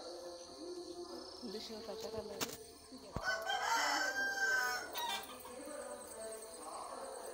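One loud, drawn-out bird call about three seconds in, lasting nearly two seconds, over faint steady background tones, with a light knock just before it.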